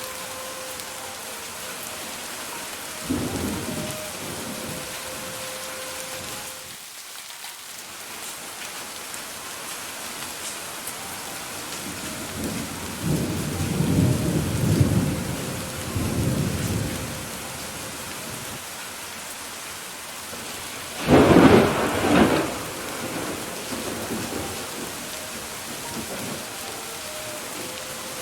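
Steady rain falling, with thunder rolling over it: a short rumble about three seconds in, a longer rumble through the middle, and the loudest thunderclap about three-quarters of the way through.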